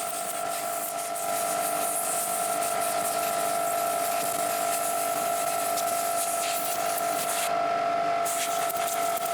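Steady spray hissing as a carburetor main jet is blown and sprayed clean, breaking off briefly near the end, over a constant whining hum.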